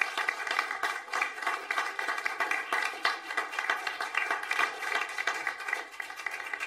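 Steady clapping like applause, many quick overlapping claps, fading out near the end.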